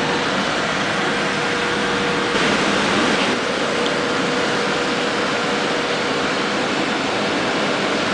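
Middleby Marshall PS360 conveyor pizza oven running: a steady rush of blown air with a faint steady tone, swelling briefly a little over two seconds in.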